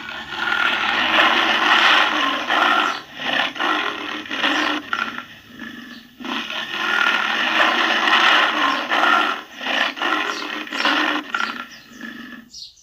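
Tiger roaring and growling: two long roars, each followed by a run of shorter grunts.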